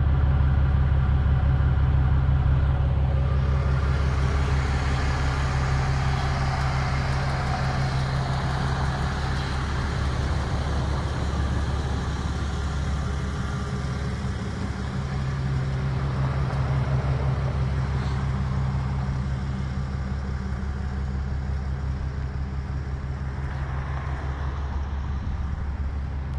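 Heavy-duty pickup truck's engine running steadily with a deep, even hum while it pulls a flatbed trailer loaded with a shipping container, slowly getting quieter.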